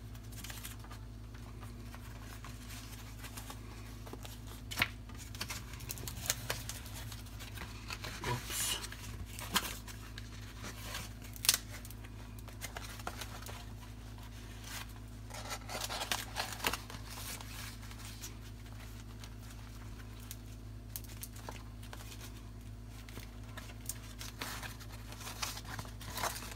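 Banana leaf rustling and crinkling in short spells as it is folded and pressed by hand, with a few sharp clicks, over a steady low hum.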